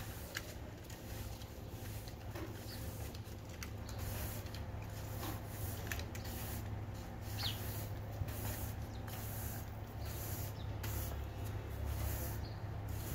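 Household broom sweeping dust across a tiled floor: repeated swishing strokes about a second apart, over a steady low hum.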